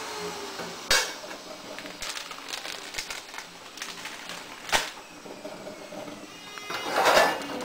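A stainless steel pan lid is set down on a frying pan with a sharp clink, followed by a second clink a few seconds later and a louder clatter near the end, over a steady low hiss from the pan on the gas burner.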